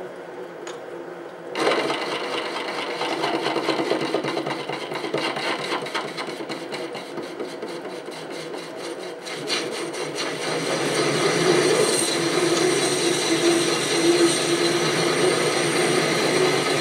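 SC2 mini lathe facing a 76 mm aluminium bar: the lathe runs, then the tool bites about a second and a half in and a rough, scraping cutting noise starts. It grows louder from about eleven seconds in, with a steady tone over the cut.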